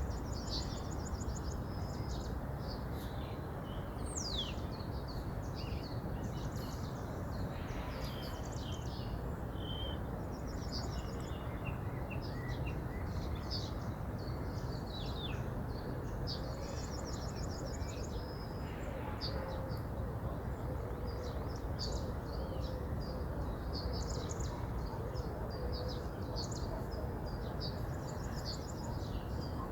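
A river flowing with a steady rush, with several birds singing and chirping over it throughout.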